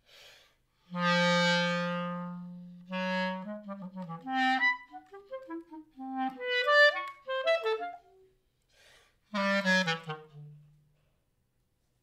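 Solo clarinet playing a contemporary piece: a breathy puff of air, then a long low note that fades away, followed by short notes leaping up and down, and a last low note that slides downward and dies out near the end.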